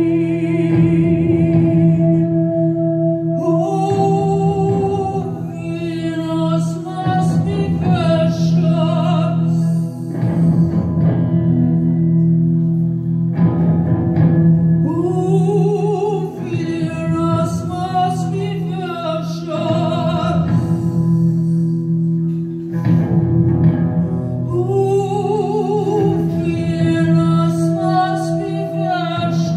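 Live band music: a woman sings into a microphone with a wavering vibrato over steady, sustained low chords. She pauses between phrases while the chords carry on.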